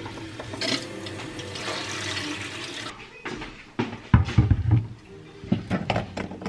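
Kitchen tap running into a steel sink for about three seconds. Then the clicks and knocks of plastic and glass bottles being handled and set down on a wooden chopping board, and the pump top of a glass soap dispenser being worked loose.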